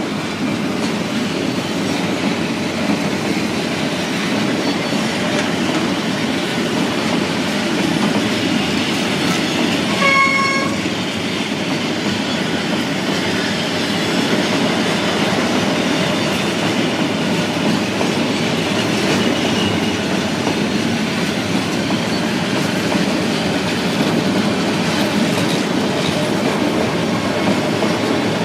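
Metre-gauge train hauled by a Dongfeng 21 diesel locomotive, running steadily with wheels clattering over the rails, and one short horn blast about ten seconds in.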